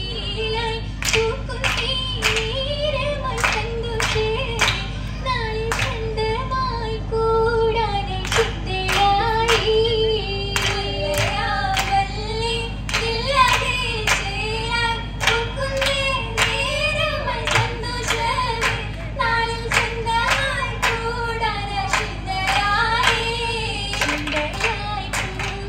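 Oppana performance: female voices singing a Mappila song together, with the dancers' steady rhythmic hand claps about twice a second.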